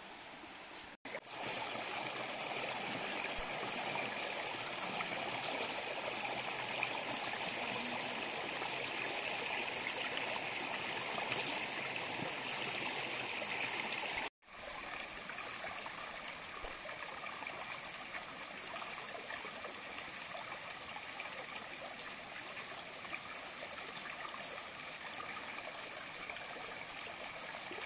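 Shallow rocky stream running steadily, a continuous rush and trickle of water. The sound cuts out for an instant twice, about a second in and around the middle.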